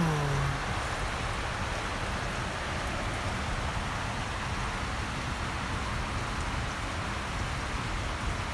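Steady, even hiss like rain, with a brief low voice-like sound right at the start.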